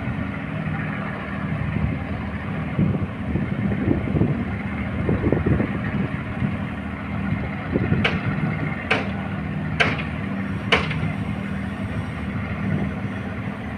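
Engine of a wooden fishing boat running steadily as the boat gets under way, a low even hum. About eight seconds in, four sharp clicks come roughly a second apart.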